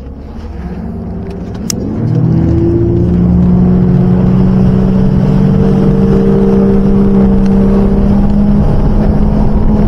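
Bass boat's outboard motor throttling up, its pitch rising over the first two seconds, then running steady and loud at speed. There is a single sharp click near the start of the climb.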